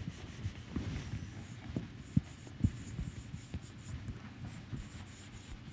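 Marker writing on a whiteboard after a board eraser wipes it: faint, short strokes that come and go, with light taps.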